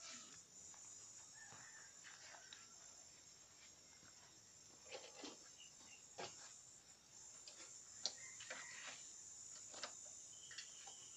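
Near silence: faint, steady high-pitched chirring of crickets, with a few soft clicks and knocks scattered through the middle.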